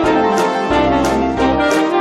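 Background music with a steady beat and a brass melody over piano and bass.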